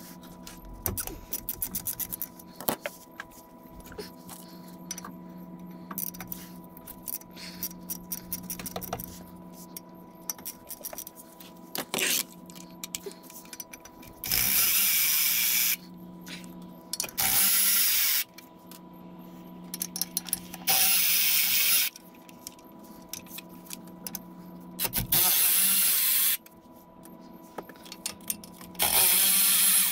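Scattered clicking of a hand ratchet, then five loud bursts of a power tool, each lasting about a second, as the clutch pressure plate bolts are run out of the flywheel.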